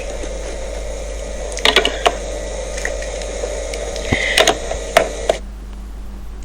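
A few light clicks and taps over a steady hiss; the hiss drops away near the end.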